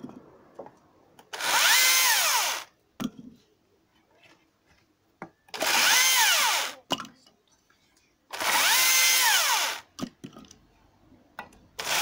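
Husqvarna T536Li XP cordless top-handle chainsaw run with no load in short trigger bursts: the electric motor and chain whine up in pitch, hold for about a second and wind down, three times, with a fourth burst starting at the very end. Light clicks and knocks sound in the pauses between bursts.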